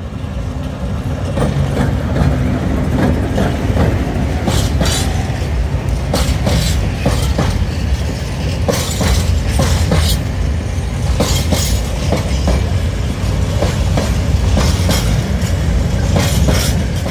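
A freight train passing close by: a diesel locomotive's engine rumbles as it goes past, then a long string of open freight wagons rolls by. Their wheels clatter over the rail joints in pairs of sharp clacks every second or two.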